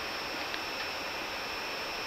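Steady hiss of Airbus A380 flight-deck background noise with the engines idling, carrying a few faint steady high-pitched tones.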